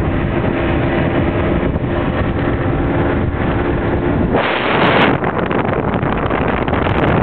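Wind buffeting the microphone on a moving 50cc moped, with the moped's small engine running steadily underneath. A stronger gust hits the microphone about halfway through.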